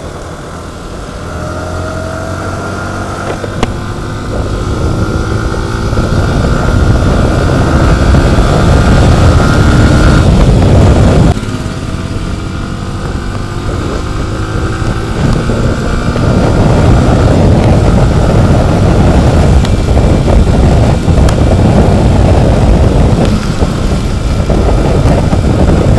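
Yamaha R15 V4 M's 155 cc single-cylinder engine climbing in revs as the bike accelerates, with a gear change about eleven seconds in before it pulls up again. Heavy wind rush on the helmet microphone runs under it.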